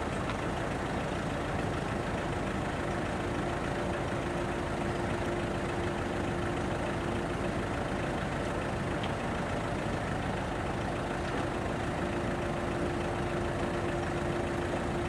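Truck engine of a truck-mounted folding-boom aerial work platform idling steadily, with a steady mid-pitched hum over it.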